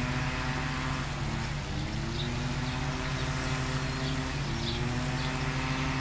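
Tour shuttle bus engine idling steadily, a constant low hum with a slightly wavering pitch.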